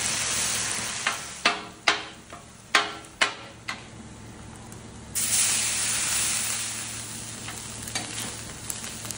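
Food sizzling on a hot flat-top griddle, with several sharp metal clanks that ring briefly between about one and four seconds in. About five seconds in the sizzling jumps suddenly louder as rice goes onto the griddle, then settles into steady frying with a few light spatula scrapes.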